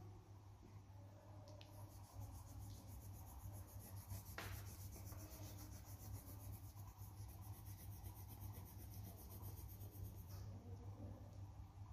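Coloured pencil scratching on paper card in rapid, even back-and-forth shading strokes, faint, starting about two seconds in and stopping near the end. A steady low hum runs underneath.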